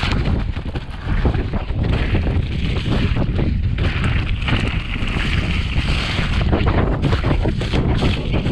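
Wind buffeting the camera microphone of a mountain bike descending a leaf-covered dirt trail. Under it, the tyres roll over dry leaves and the bike rattles over bumps in many short knocks.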